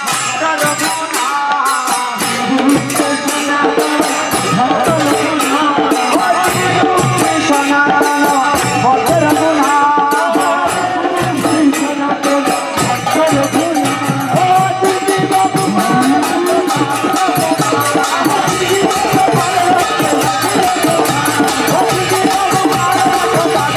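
Kirtan music: voices chanting over hand cymbals keeping a fast, steady beat, with a drum joining in about two seconds in.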